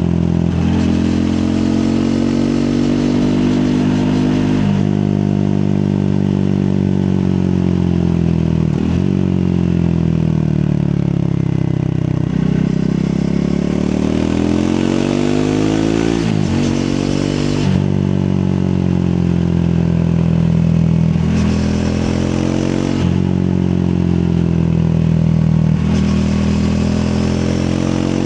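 Triumph Speed 400's 398 cc single-cylinder engine under way. The engine note rises and falls again and again, with sudden pitch breaks that mark gear changes, over steady wind and road noise.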